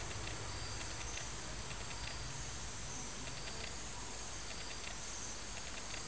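Steady low background hiss with faint, short high-pitched chirps repeating about once a second.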